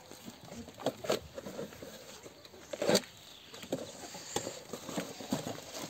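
Plastic wrapping on a grass trimmer's boom shaft rustling and crinkling as it is handled and pulled open, with scattered short scrapes and light taps.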